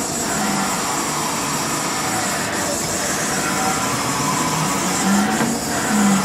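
Haas Mini Mill CNC vertical mill's Y-axis jogged by handwheel: a steady machine hum and hiss, with short low servo-drive whines that slide in pitch as the axis starts and stops, about five to six seconds in.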